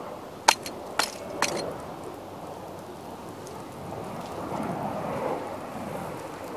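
Wooden cuckoo clock burning in an open fire, a steady rush of flames that swells about five seconds in. Three sharp cracks come in the first second and a half.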